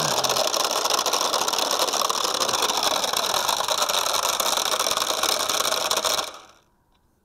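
MJX X102H quadcopter's brushed motors and propellers running on the ground with a steady loud buzzing whine, the motors refusing to shut off and the props bouncing into the fitted prop guards. About six seconds in the motors stop and the sound cuts off abruptly.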